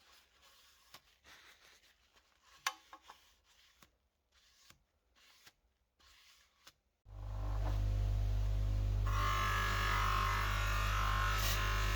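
Faint rubbing and small clicks of hand work on a metal box, one sharper click among them, then electronic background music comes in about seven seconds in, with a steady deep bass and a brighter layer joining shortly after.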